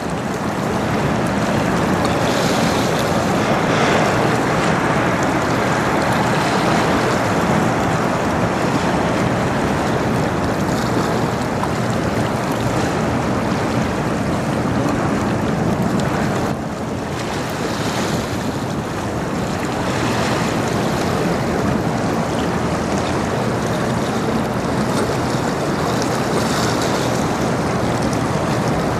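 Steady rushing of wind on the microphone and river water, with a low steady hum underneath from the passing bulk-carrier lake freighter; it eases briefly a little past the middle.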